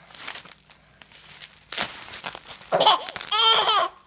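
Bubble wrap crinkling, followed about three seconds in by a baby's laughing, babbling vocalisations.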